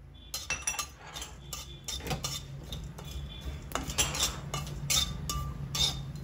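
A flat metal spatula scrapes and clinks against the inside of a dry metal kadhai as it stirs poppy seeds, cloves and black peppercorns being dry-roasted without oil. It is a quick run of scrapes and taps that starts a moment in.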